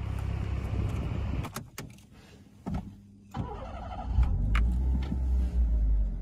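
Daihatsu Copen's engine running with a steady low rumble. About a second and a half in come two sharp clicks and a quieter stretch, then a short whir and a louder low rumble.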